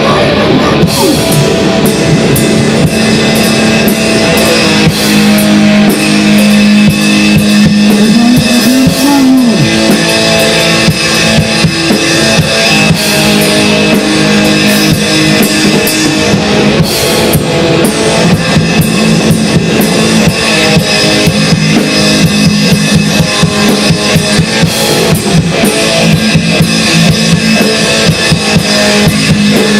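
Grind-noise music: distorted electric guitar and fast, dense drumming. A held guitar note bends up and back down about eight seconds in.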